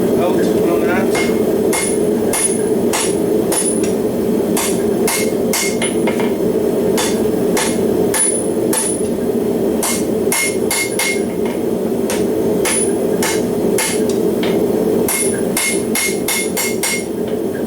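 Hand hammer forging flat steel bar on an anvil: a string of irregular blows, roughly one to two a second in bursts, many with a short high anvil ring. Under them, the forge runs steadily.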